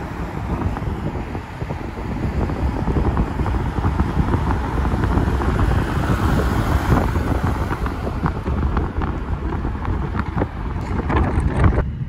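Car driving along a city street, heard from inside: steady road and wind noise, swelling about halfway through as another vehicle draws alongside. The sound changes abruptly near the end at an edit cut.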